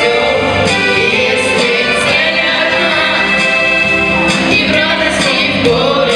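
Song performed with singing over instrumental backing, with steady sung notes that glide between pitches.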